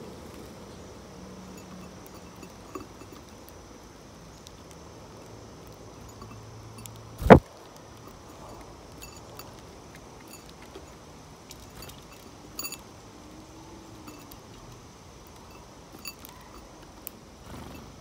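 A faint, steady outdoor hiss with a thin high steady tone, broken by a single sharp, loud knock about seven seconds in and a few light clicks later on.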